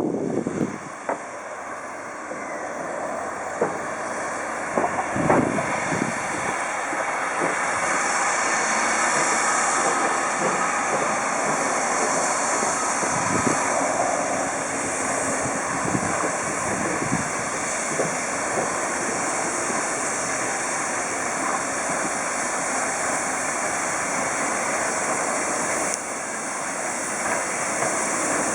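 A steam-hauled train running past, a long steady rushing noise with a few sharp knocks in the first several seconds.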